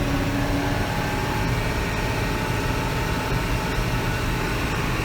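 Tractor engine pulling a grain cart, running steadily.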